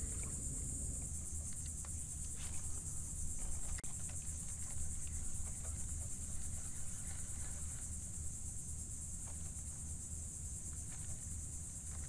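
Insects droning steadily at a high pitch, with a low steady rumble underneath and a few faint clicks.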